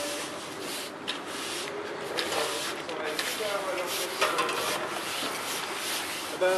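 Stiff brooms sweeping asphalt, several at once: a run of repeated scratchy scraping strokes.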